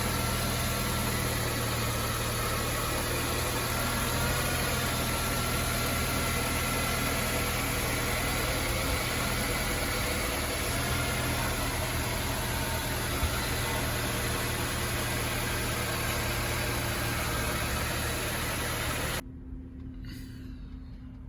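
Honda CR-V engine idling steadily, cutting off suddenly near the end.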